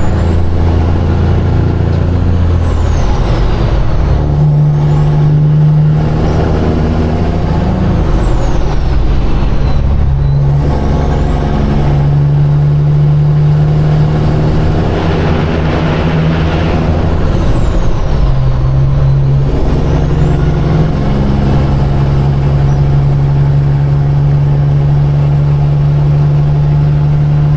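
Semi truck's diesel engine pulling through gear changes: the engine note steps down and climbs back several times over the first twenty seconds, then holds a steady pull, with a high whistle rising and falling along with the engine.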